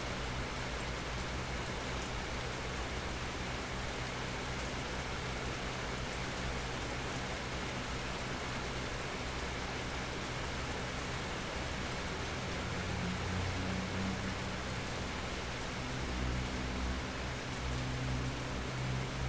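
Steady natural rain falling under a small almond tree, an even hiss with no let-up. A low rumble underneath swells a little in the second half.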